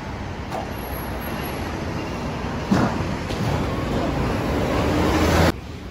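Road traffic noise that grows steadily louder and stops abruptly near the end, with one sharp knock about halfway through.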